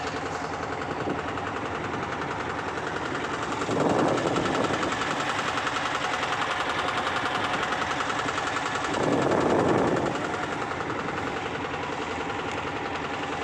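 Wooden motorboat's engine chugging rapidly and steadily, with two louder rushing surges about four and nine seconds in.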